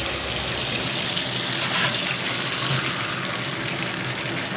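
Eggs sizzling in a hot frying pan with bacon: a steady, high hiss that swells about a second in, then holds.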